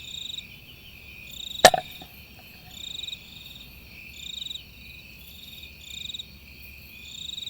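Crickets chirping in short, high-pitched trills repeating a little over a second apart, with one sharp crack about one and a half seconds in.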